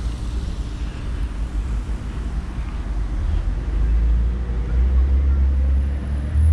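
Low, steady rumble of a motor vehicle's engine, growing louder about three seconds in.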